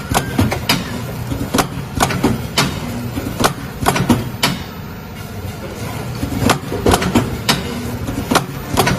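Packing machine running with a steady low hum and sharp clacks roughly every half second, easing off briefly around the middle.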